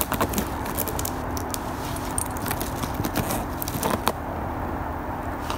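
A cougar gnawing and tearing at a moisture-swollen OSB board: an irregular run of sharp cracks and crunches of wood that thins out near the end.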